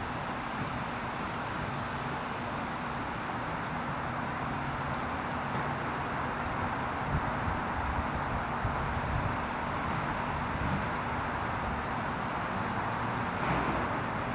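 Steady traffic noise from nearby roads: an even hiss with a low hum, without clear separate events.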